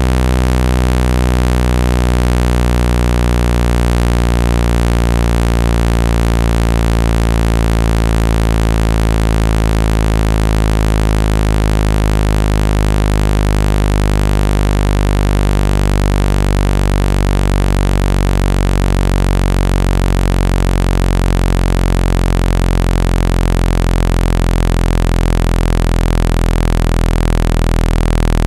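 Loud, steady, low-pitched synthesized buzz rich in overtones: a water-eject tone played to vibrate water out of a phone speaker.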